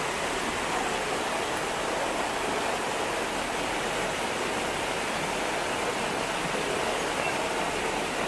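Muddy rainwater runoff rushing down a path and pouring over a low step, a steady rushing of flowing water.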